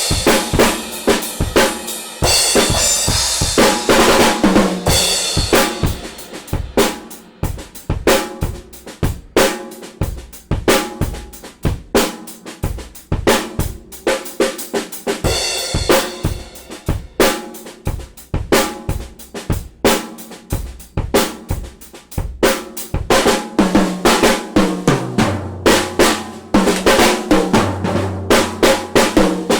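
Mapex Storm poplar-shell drum kit being played: a busy groove of bass drum, snare and hi-hat with rimshots. Crash cymbals wash over it about two seconds in and again midway, and low tom notes ring out near the end.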